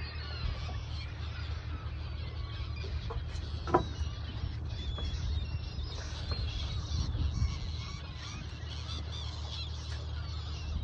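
A flock of seagulls calling continuously at a distance, gathered over a shoal of feeding fish, over a steady low hum from the boat's outboard motor. A single sharp knock sounds about four seconds in.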